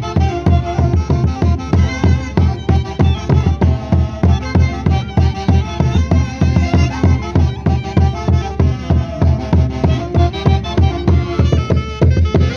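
A live Huancayo folk orchestra playing a dance tune: melody instruments over a steady, quick, driving beat.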